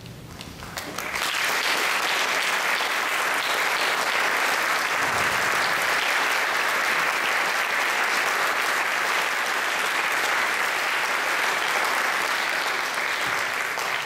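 Audience applause, swelling in about a second in and then holding steady.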